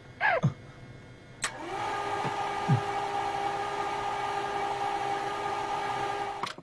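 A click, then a steady, even electronic drone that holds for about five seconds and cuts off abruptly near the end.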